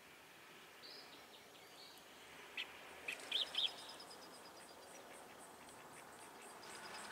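Faint wild birds chirping a few short notes around the middle, with an insect's high, evenly pulsing call setting in about three seconds in and repeating about three times a second.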